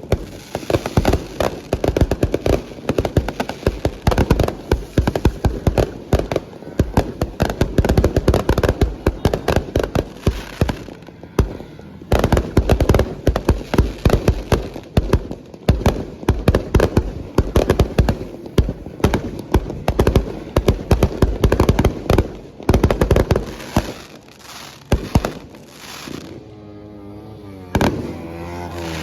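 Fireworks going off in a dense, rapid barrage of bangs and cracks, many reports a second. There is a brief pause about eleven seconds in, and the barrage thins out near the end.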